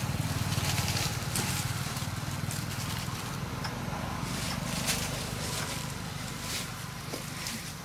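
Steady low rumble, with scattered short crackles of dry leaf litter as macaques move about on it.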